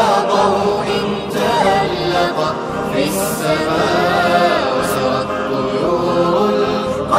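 An Arabic nasheed sung by several voices together in harmony.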